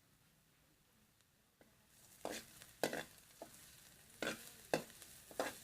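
Food sizzling in oil in a frying pan, starting about two seconds in, with a utensil stirring and scraping against the pan in several sharp strokes.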